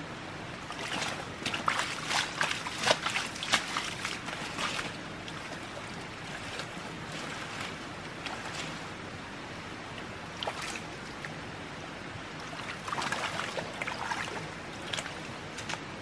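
Water splashing and sloshing in two spells, a busy one near the start and a shorter one near the end, over a steady hiss of running water.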